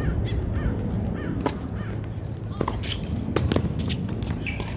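Tennis racquets striking the ball in a doubles rally: several sharp pops roughly a second apart, over a steady low rumble. Short high chirps come in between the hits.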